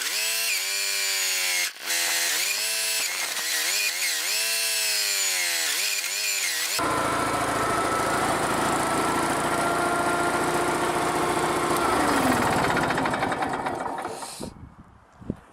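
Power tool motor running, its pitch repeatedly dipping and recovering as it is loaded against the wood. About seven seconds in the sound changes abruptly to a harsher, grinding machine noise with a steady whine, which fades away near the end.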